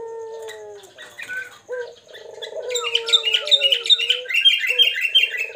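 Caged puter doves cooing in long, low, slightly falling notes, then from about halfway through a caged sooty-headed bulbul (kutilang) breaking in with a loud, fast run of chirps over the coos.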